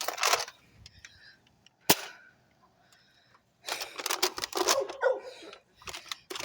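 A single sharp snap of a spring-powered Nerf blaster firing, about two seconds in. Near the end comes a stretch of rustling, scuffling noise.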